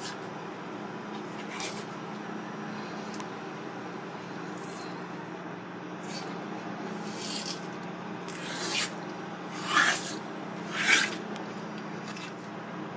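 Fingers skinning a raw cuttlefish mantle: several short rubbing, tearing strokes as the thin skin is pulled from the slick flesh, the two loudest near the end, over a steady low hum.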